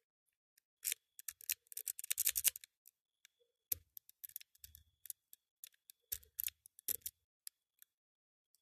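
Lock pick and tension tool working the pins of an ABUS Discus 24/60 disc padlock: irregular small metallic clicks and scrapes, some in quick runs, as picking starts over after pin 1 was overset.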